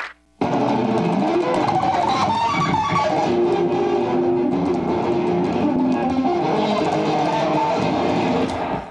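Electric guitar played through a combo amplifier: a continuous run of rock notes and strummed chords, starting about half a second in.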